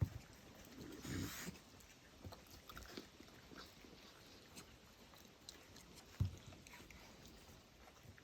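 Raccoons eating at close range: faint chewing and biting with scattered small clicks, a short rustle about a second in, and two dull thumps, one at the very start and one about six seconds in.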